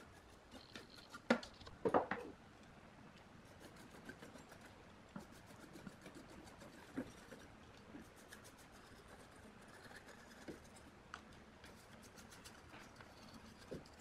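Paintbrush bristles scrubbing over the components of amplifier circuit boards in a faint, scratchy patter of small ticks, with a couple of louder knocks a little over a second in.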